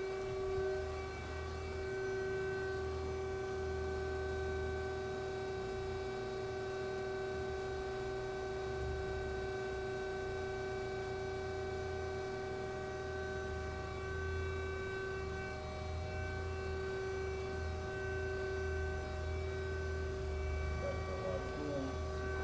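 A 1997 Okuma & Howa ACT-35 CNC lathe sitting under power, giving a steady machine hum made of several fixed tones over a low rumble.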